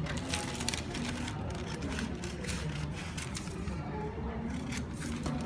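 Scissors cutting out a neck facing, a string of irregular sharp snips, over faint background music.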